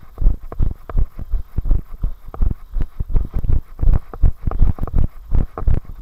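A runner's footfalls on a dirt path, about three thudding strides a second at a steady running pace, heard through a camera carried on the runner's body.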